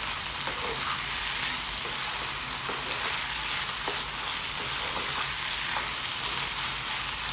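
Chicken pieces, bell peppers and peanuts sizzling in oil in a non-stick frying pan, stirred with a wooden spatula. A steady sizzle with a few light scrapes and taps of the spatula.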